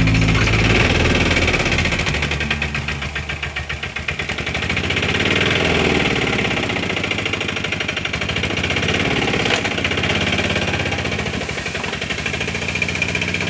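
A small engine running with a fast, rattling pulse, its level swelling and easing a couple of times.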